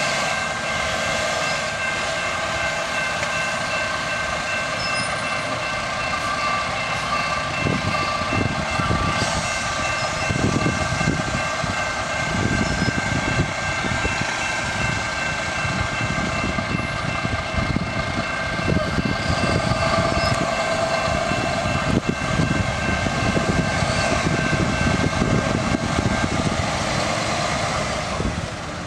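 Hi-rail flash-butt welding truck's diesel engine running as it rolls along the rails over the crossing, its rumble growing as it comes close and passes. Over it, a railroad crossing warning bell rings steadily and stops a few seconds before the end.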